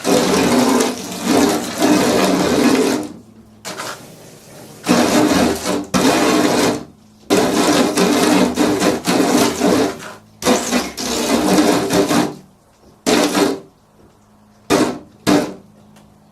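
Window glass being cleaned: repeated wiping strokes across the pane, each lasting one to two seconds with short pauses between them, and a few quick short strokes near the end.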